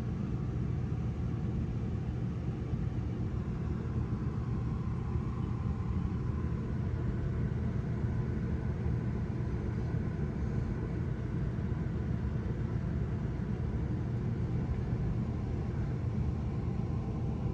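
Dust-storm wind blowing around a motorhome, heard from inside as a steady low rumble.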